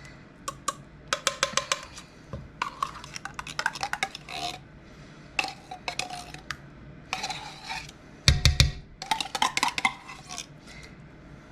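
Utensil clinking and scraping against a can and a bowl in quick bursts as condensed cream of mushroom soup is emptied into the bowl, with one heavier dull thud about eight seconds in.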